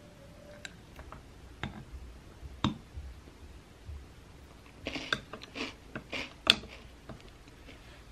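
Small handling noises: scattered light clicks and taps, then a short flurry of clicking and scraping about five seconds in, its sharpest click near six and a half seconds.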